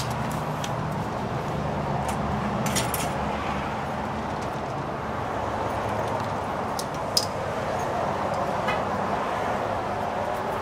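Steady outdoor background hum and noise, with a few short clicks and rustles from gloves and gear being handled.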